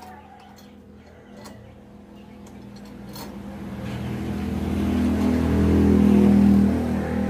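A motor vehicle's engine grows louder over several seconds, loudest near the end, as it approaches. A few light metallic clicks in the first three seconds come from a hex key working the bolts of a motorcycle handlebar crossbracket.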